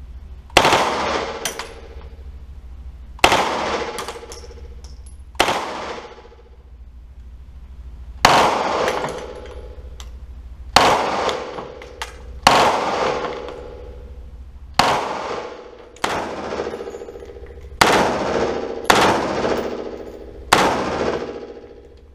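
A fully automatic firearm fired in about ten short bursts, with pauses of one to three seconds between them. Each burst rings out in a heavy echo, which the GoPro's internal mic made worse by failing to handle the shooting noise.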